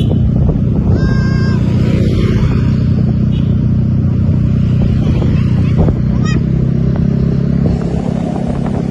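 A large bus engine runs loudly close by, and its telolet horn plays a short burst of musical tones about a second in. A brief higher wavering tone comes around six seconds in, and the engine drone eases near the end.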